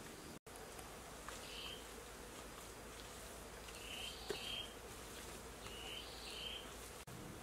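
Faint forest ambience with short high insect chirps, mostly in pairs, and a single light knock about four seconds in.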